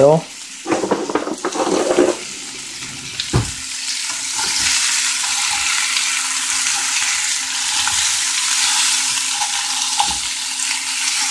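Potatoes frying in hot coconut oil in a frying pan: a steady sizzle that swells a few seconds in and holds, with some scraping and a single knock in the first few seconds.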